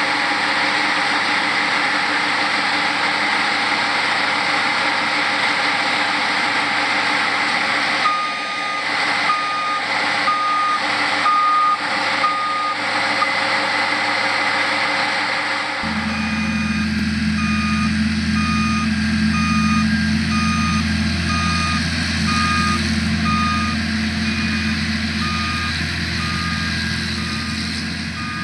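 Heavy harvesting machinery running steadily, with a reversing alarm beeping about one and a half times a second: a short run of beeps starting about eight seconds in, then again through the second half after the engine sound turns suddenly deeper.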